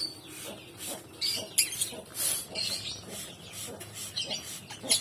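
Lovebirds giving short, high-pitched squeaky chirps, repeated irregularly.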